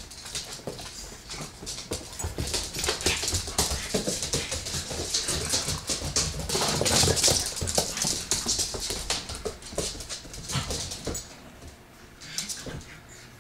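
Dogs play-fighting: whimpering dog noises over scuffling, loudest about halfway through and dying down near the end.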